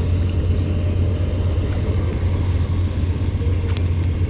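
A steady low outdoor rumble, with a faint click near the end.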